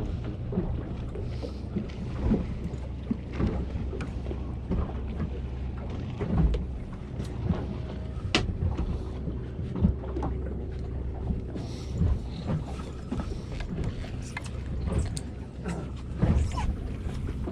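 Small fishing boat on the water: a steady low rumble with wind and water noise, broken by scattered knocks and clicks of gear being handled, one sharp click about eight seconds in.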